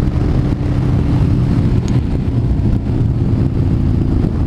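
Yamaha Bolt's V-twin with a Vance & Hines exhaust running steadily while the bike is under way, with wind noise on the microphone.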